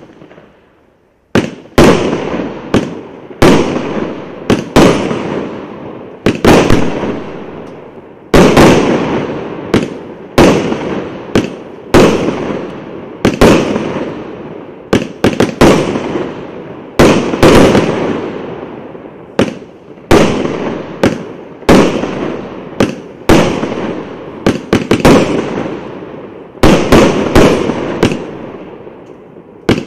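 A 49-shot firework cake firing its shots in a rapid volley: sharp aerial bangs about every half second to second and a half, each followed by a fading crackle. A single bang opens it, then a short pause before the volley begins about a second and a half in.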